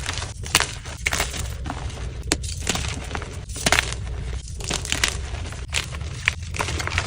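Blocks of dyed gym chalk crunching and crumbling as they are squeezed and crushed: an irregular run of sharp crackles and snaps over a steady low hum.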